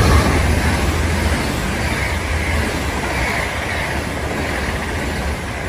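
GWR Class 800 bi-mode express train passing at speed. The wheels on the rails and the rushing air make a loud, steady rush over a deep rumble, loudest as the front of the train goes by at the start, then easing slightly as the coaches pass.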